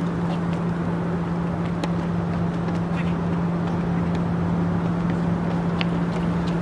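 A steady low mechanical hum with a constant drone under an even rushing noise, with a few scattered light taps of footsteps on concrete.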